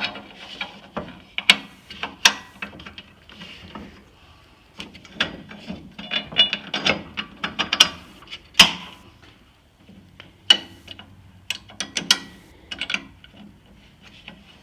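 Irregular metallic clicking and clatter from fastening a table saw to its steel-and-aluminium stand, with quick runs of clicks and one sharp knock just past the middle.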